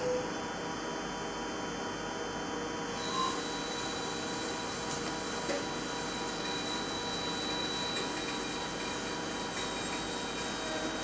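Machining centre drilling 1.4301 (304) stainless steel with a WIDIA TOP DRILL S+ 12×D solid carbide drill, coolant spraying through the drill tip: a steady mechanical hum with hiss and several steady tones. A high steady whine and more hiss join about three seconds in, as the drill enters the cut.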